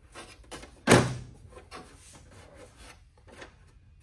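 A traffic signal housing being handled: one loud thunk about a second in, followed by lighter clicks and rubbing.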